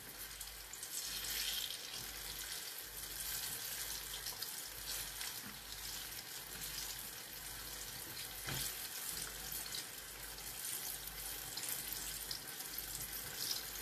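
Sweet potato fritters deep-frying in hot oil: a soft, steady sizzle with fine crackling and a single light knock a little past halfway.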